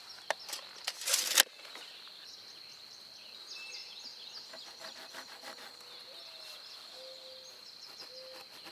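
Outdoor ambience: a steady high-pitched insect drone, scattered bird chirps, and a short low hooting call repeated several times. A brief loud rustling noise about a second in.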